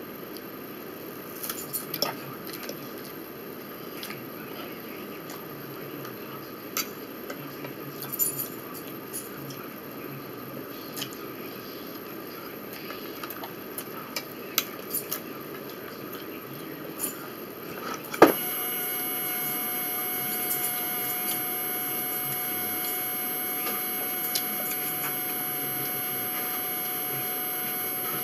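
Eating at a table: scattered light clicks and clinks of cutlery and food being handled. About two-thirds of the way through, after a sharp click, a steady hum with several constant whining tones starts and keeps on, an appliance or fan switching on.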